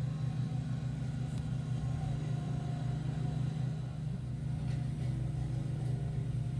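Small ride-on asphalt roller's engine running with a steady low hum as it tamps down a fresh asphalt patch.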